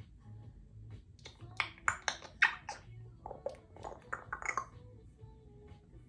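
Congo African grey parrot giving a quick run of about a dozen short, harsh, speech-like calls between about one and five seconds in.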